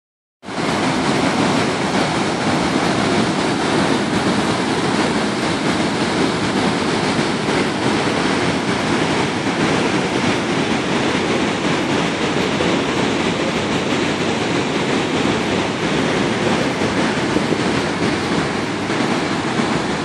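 Large waterfall: a steady, loud rush of white water plunging over the brink into the pool below.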